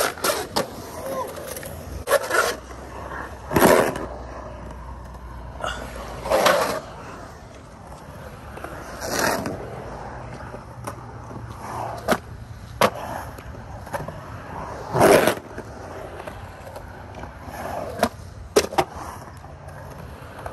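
Skateboard wheels rolling around a concrete pool, with loud clacks and scrapes every second or few as the trucks and wheels hit and grind the pool coping; a few of the scrapes last about half a second.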